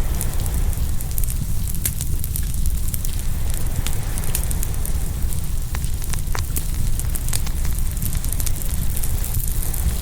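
Open wood fire crackling, with many short sharp pops scattered through, over a steady low rush of ocean waves.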